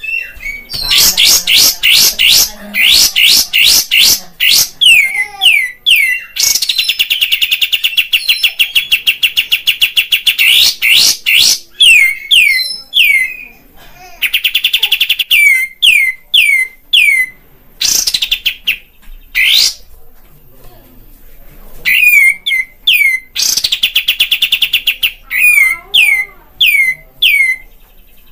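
Kapas tembak bulbul singing loudly: volleys of quick, sharp notes that each sweep downward in pitch, broken by several long, very fast rattling trills. This is the bird's full, energetic song, played as a lure to stir caged kapas tembak into singing.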